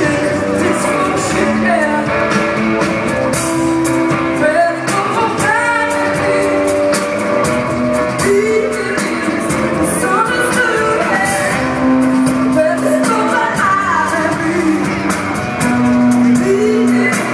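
Live band performing a song with a singer, held notes and sliding vocal lines over the band, and drums keeping a steady beat with regular cymbal strokes.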